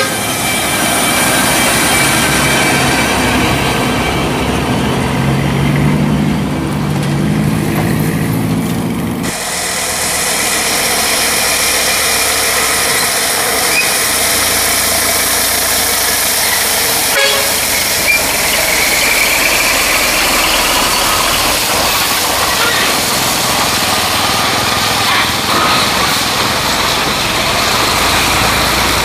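Diesel engine of a FAW truck loaded with logs, running under heavy load with a steady drone. About nine seconds in, the sound cuts abruptly to another loaded log truck's diesel engine running as it approaches.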